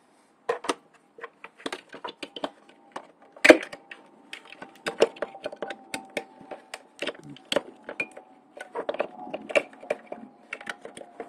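Irregular sharp clicks and knocks from hands working plastic wiring connectors and parts in a motorcycle's wiring, several a second, with a faint steady tone behind them from a few seconds in.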